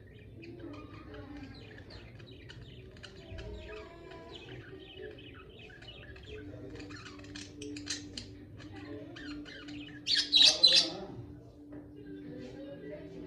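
Pet budgerigars chirping and chattering, with a loud burst of shrill calls about ten seconds in.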